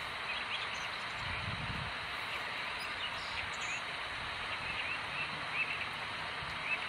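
Steady outdoor park ambience: a constant background hiss with faint, scattered bird chirps.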